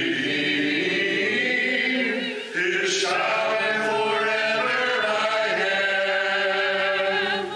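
Congregation singing a hymn in unaccompanied four-part harmony, holding long notes, with a short breath about two and a half seconds in before the next phrase.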